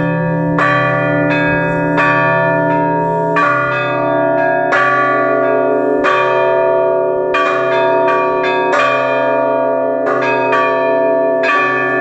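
Russian trezvon on Orlov-factory church bells, among them an 1897 bell whose vertical crack has been sawn through. The bells are rung by their clapper ropes: a heavy, deep bell strikes about every second and a half, with smaller bells chiming quickly between, all ringing on and overlapping.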